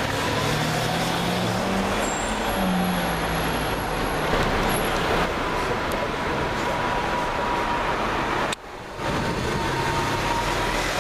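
Lamborghini Aventador SV's V12 engine running amid street traffic noise, its low engine note rising in pitch over the first few seconds. The sound drops out briefly near the end.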